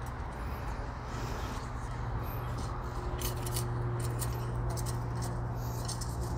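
Small scratches and clicks of gritty bonsai soil mix as a chopstick pokes it into the hollows and crevices around an elm's roots. A steady low hum runs underneath.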